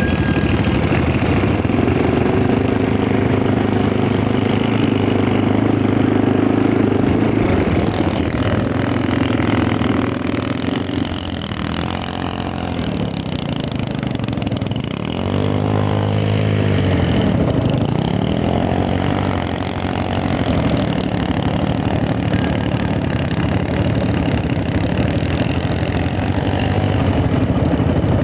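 ATV engine running, its pitch rising and falling several times in the middle as it revs up and back down.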